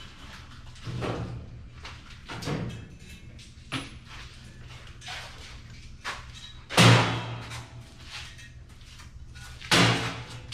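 Workshop clatter: a handful of knocks and bangs from tools and parts being handled, the loudest about two-thirds of the way through and another near the end, over a steady low hum.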